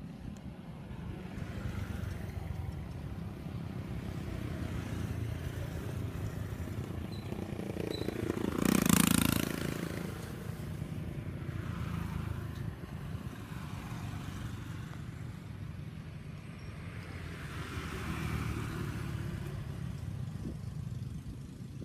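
Passing motor vehicle traffic: a steady low engine rumble that swells and fades several times, loudest as one vehicle passes close about nine seconds in.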